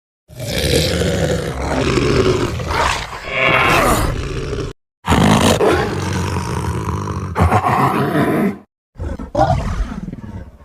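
Custom-made dragon roar sound effects, three in a row with short silences between: two of about four seconds each, then a shorter one that fades out.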